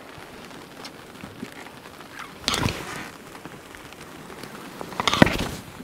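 Steady rushing noise of wind and water around a sailboat running under sail, with two louder whooshing surges about two and a half and five seconds in.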